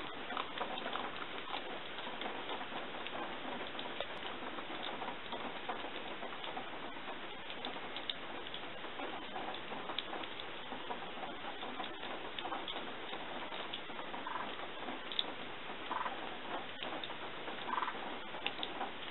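Masked palm civet eating from a plastic tub: faint scattered clicks and ticks of chewing and of its muzzle knocking the tub, over a steady hiss.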